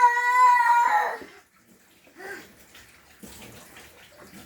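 A young child's high-pitched vocal squeal, held on one steady pitch and stopping about a second in, followed by a short, fainter vocal sound.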